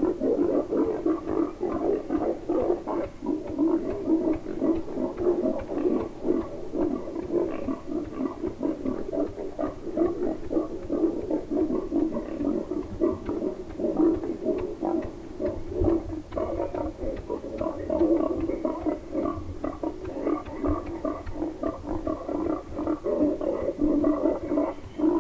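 Wild boar grunting: a continuous run of rapid, low, choppy grunts.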